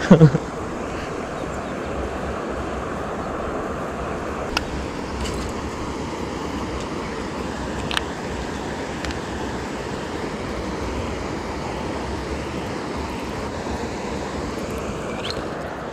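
Steady outdoor wind noise, with a few sharp light clicks scattered through it.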